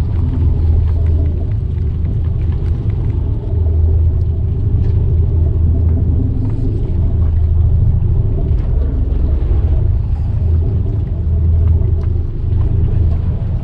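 Fishing boat's engine idling, a loud low rumble that keeps steady, with a few faint ticks over it.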